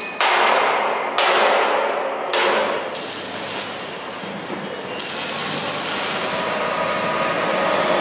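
MIG welding torches arcing on steel, a dense crackling hiss that starts afresh sharply three times in the first few seconds. From about halfway it gives way to a steadier metal-shop machine noise with a faint whine.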